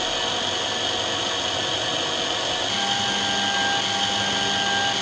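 Spectacle-lens drilling machine's drill motor running steadily while it drills the holes in a lens, with a steady hum joining in a little past halfway.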